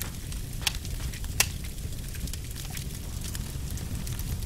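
Log fire crackling: a steady low rumble with scattered sharp pops, two loud ones within the first second and a half.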